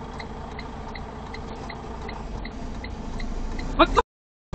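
Inside a semi truck's cab: the engine idles with a low rumble under an even ticking of about two to three clicks a second, typical of a turn-signal flasher. Near the end there is a brief rising squeak, then the sound cuts off.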